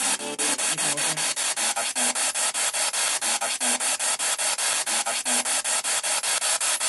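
Spirit box sweeping through radio stations: hissing static chopped into a rapid, even stutter about seven or eight times a second, with brief fragments of radio voices flickering through the sweep.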